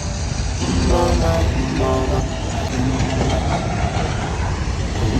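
Loud, steady low rumble, with short snatches of a song's singing over it about one and two seconds in.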